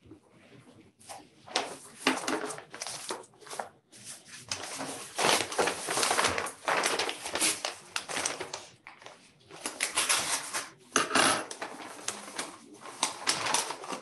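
Paper rustling and crackling in repeated irregular bursts as a sealed bid envelope is torn open and its pages pulled out and handled.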